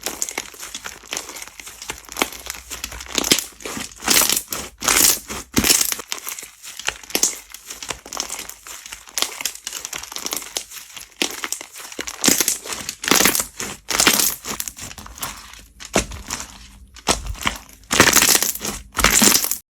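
Slime being squeezed and pressed by hand, giving irregular crackling, crinkly pops and squelches, loudest near the end.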